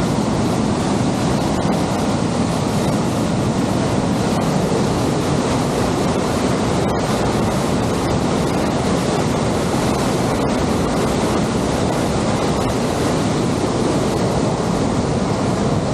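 A waterfall on Aira Beck in spate after days of heavy rain: a loud, steady rush of falling water.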